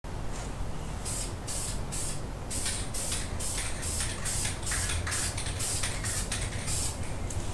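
Aerosol can of Duplicolor high-temperature caliper paint spraying in a quick run of short hissing bursts, about three a second. These are the light touch-up passes over thin edges and corners of a brake caliper.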